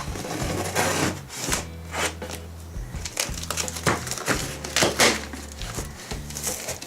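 A mailed package being torn and unwrapped by hand: irregular tearing, crinkling and rustling of the packaging.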